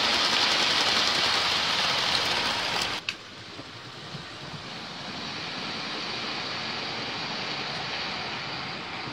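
00 gauge model freight wagons running past close by: a loud, steady hiss of wheels on model track that cuts off abruptly about three seconds in. A quieter, steady running hiss follows and grows a little louder as another model train approaches along the track.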